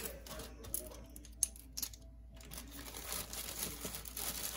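Clear plastic zip-top bag crinkling as it is handled and a beaded bracelet is worked into it, with a few light clicks scattered through.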